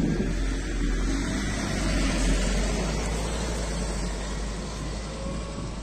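Scania CityWide 12LF city bus with a compressed-natural-gas engine pulling away from a stop: a steady low engine rumble that slowly fades as the bus drives off.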